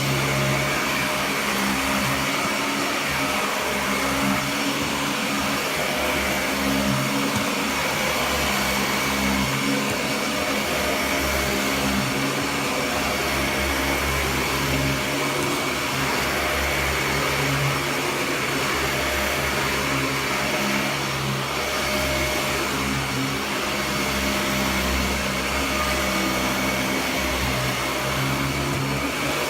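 Dyson DC41 Mk2 upright vacuum cleaner running continuously, with a steady high whine over a rushing noise; its low hum swells and fades every second or two.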